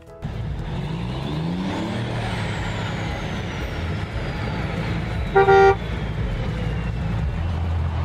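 Truck sound effect: a diesel-style engine rumbles steadily and revs up in the first couple of seconds as the truck drives by, with one short horn honk about five and a half seconds in.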